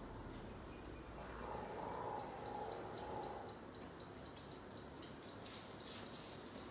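A bird calling in a fast, even series of high chirps, about four a second, running from about a second in until near the end. A soft rustle sits underneath for a couple of seconds, with a few faint clicks near the end.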